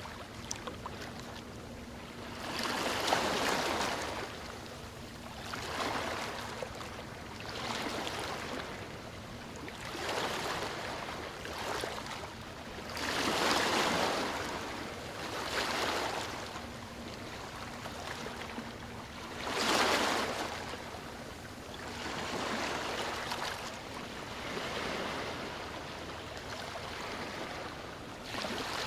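Sea waves washing onto the shore one after another, every two to three seconds, each a short swell of rushing surf that rises and falls away, with a louder wave about three seconds in, another about thirteen seconds in and another about twenty seconds in.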